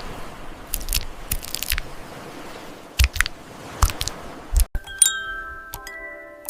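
Keyboard typing sounds, made by AI for ASMR: irregular clicking keystrokes over a soft hiss, then after a sudden cut about three-quarters of the way through, each key press rings out like a small chime, the tones hanging on and overlapping.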